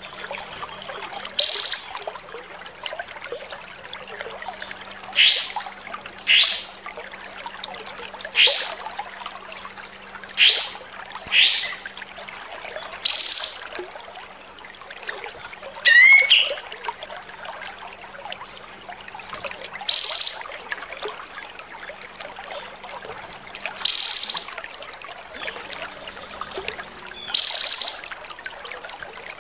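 Kapas tembak bulbul calling in short, sharp rising notes, repeated every one to four seconds, harsh in tone: a 'kasar' master song used to train other songbirds.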